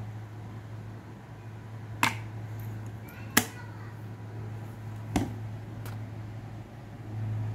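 Four sharp metallic clicks from a .22 Magnum revolver being handled with its cylinder swung out, the loudest about three and a half seconds in.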